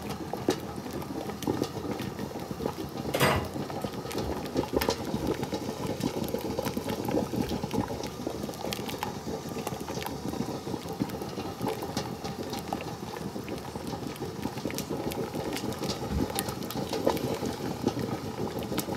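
Beef tripe stew boiling vigorously in a ceramic pot, a steady bubbling full of small pops, with one louder pop about three seconds in.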